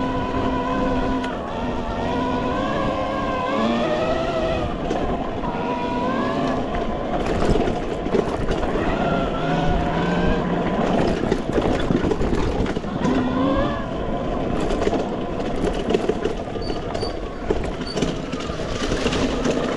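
Electric e-bike's motor whining, its pitch rising and falling as the speed changes, over steady wind and tyre noise. From about halfway through, the ride gets rougher, with many knocks and rattles from the bike on uneven off-road ground.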